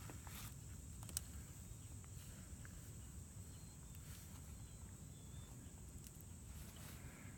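Faint outdoor quiet: a low wind rumble on the microphone, a thin steady high-pitched whine, and a couple of light clicks about a second in.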